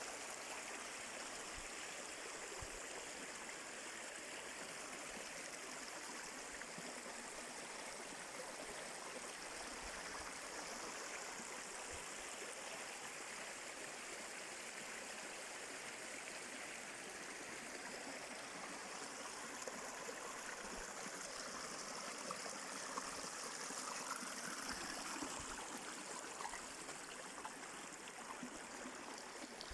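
Stream water running steadily, swelling a little about two-thirds of the way through.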